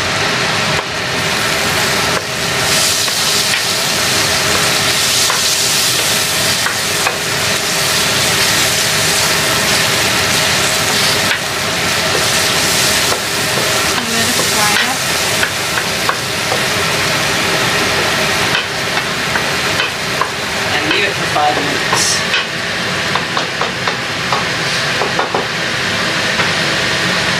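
Curry paste and a green seasoning of garlic, ginger, cilantro and thyme sizzling and frying in hot oil in a metal pot, stirred and scraped around with a wooden spoon. The sizzle is loud and steady.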